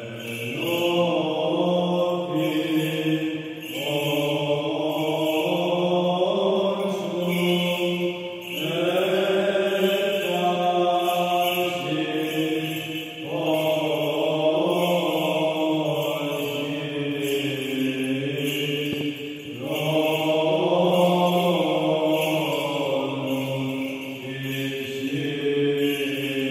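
Byzantine Orthodox liturgical chant: a voice sings long, slowly winding phrases over a steady low drone note (ison), with short breaks between phrases.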